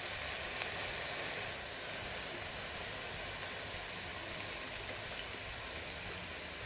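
Chopped vegetables frying in oil in a cooking pot, with a steady sizzle.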